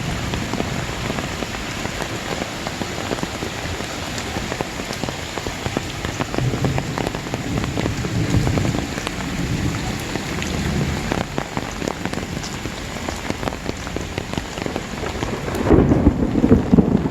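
Heavy rain falling hard, a dense steady hiss with many individual drops hitting close by. Near the end a louder low rumble comes in.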